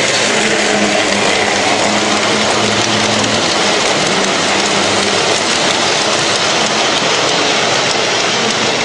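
Vintage tinplate electric toy train running past on tinplate track: the wheels and coaches make a loud, steady rolling rattle, with a low motor hum that fades about three seconds in.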